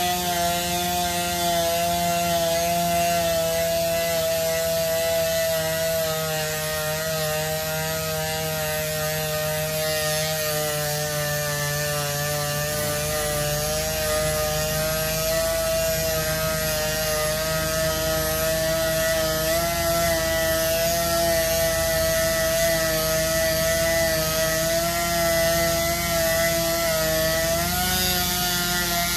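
A sander running steadily while sanding curb rash out of an aluminium alloy wheel, its whine wavering slightly in pitch as it is worked over the rim.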